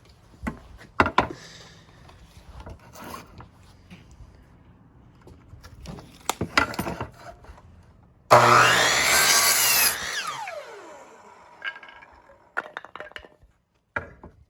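A power saw cuts an oak board in one short, loud cut of under two seconds, then its blade winds down with a falling whine. Before the cut come scattered knocks and clatter of the wood being handled and set in place.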